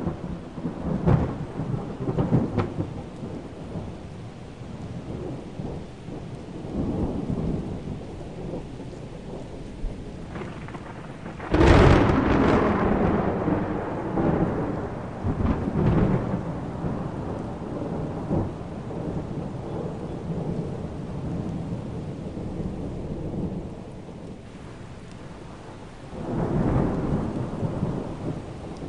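Thunderstorm: rain with rolling thunder, and a sharp loud thunderclap about twelve seconds in that rumbles on for several seconds.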